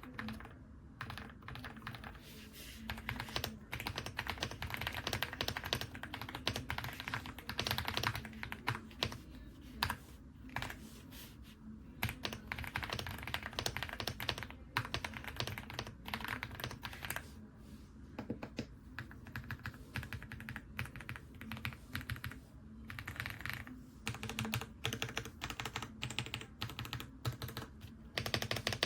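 AULA F75 Pro mechanical keyboard being typed on, its pre-lubed Reaper switches clacking in quick, continuous runs broken by short pauses.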